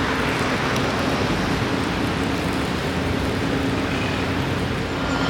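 Steady rushing noise of road traffic, with a faint low engine hum underneath.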